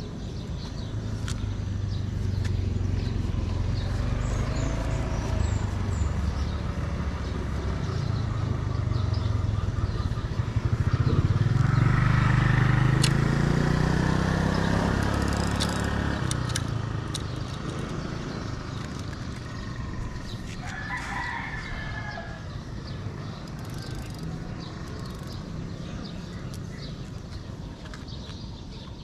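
A rooster crowing, with a call about two-thirds of the way through. Under it runs a low, pitched drone that grows louder and rises in pitch around the middle, then fades.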